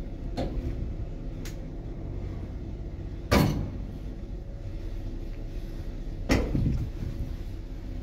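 1987-built passenger lift running with a steady low hum, broken twice by loud sharp clunks about three seconds apart, from its metal doors being worked.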